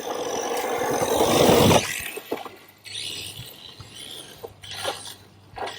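Hosim X25 1/8-scale brushless RC truck accelerating hard over dirt, its tyres and drivetrain getting louder for about two seconds and then cutting off suddenly. This is followed by quieter scuffs and a few sharp knocks as it bumps along.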